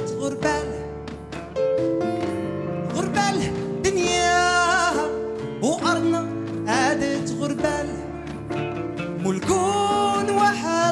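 Live band music: a man singing a wavering melody over oud, electric guitar and drums.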